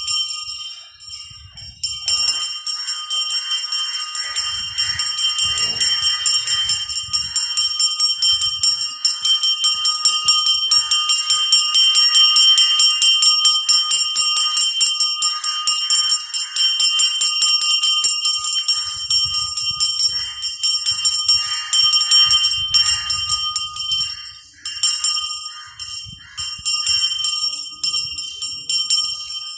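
A bell rung rapidly and without pause, its metallic ringing held steady. It builds up about two seconds in and dips briefly near the end. Dull low thuds sound now and then underneath.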